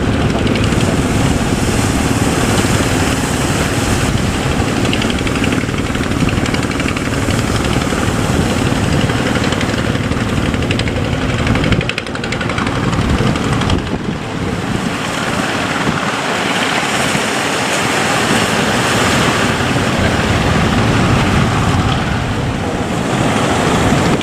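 Boat engine running under loud wind buffeting the microphone and the rush of waves and spray against the hull. The low engine rumble thins out about halfway through while the wash of wind and water grows.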